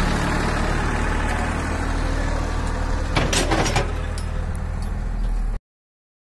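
Massey Ferguson 241 tractor's 42 hp diesel engine running steadily while pulling a land leveller, with a few short rattles a little past halfway. The sound cuts off abruptly near the end.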